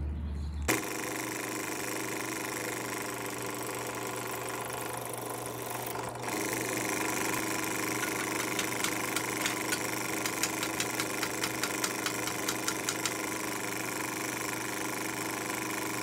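Benchtop drill press motor running steadily while drilling out a Zippo lighter insert's flint tube, which is clogged with hardened debris. Midway there is a run of quick light ticks, about three a second.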